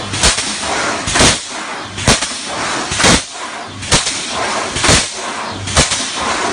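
Steel truss welding machine running, with a sharp bang about once a second as it works through its repeating cycle over a steady, hissing machine noise.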